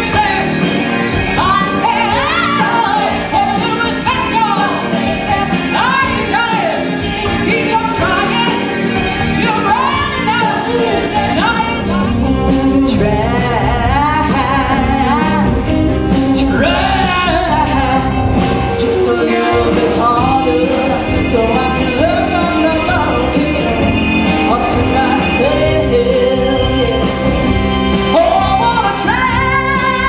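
Women singing a 1960s girl-group style song with a backing band. The low end of the band fills out about twelve seconds in.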